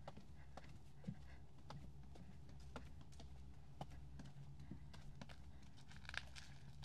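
Faint footsteps of a person walking at a steady pace, about two steps a second, each a short hard click, over a steady low hum.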